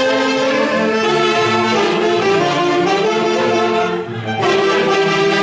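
Band music led by wind instruments playing a melody in held notes, with a brief dip about four seconds in before it resumes.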